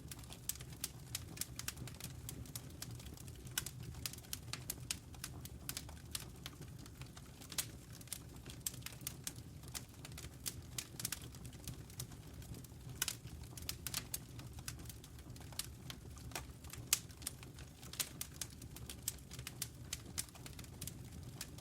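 Wood fire crackling in a fireplace: irregular sharp pops and snaps, several a second and uneven in loudness, over a steady low rumble.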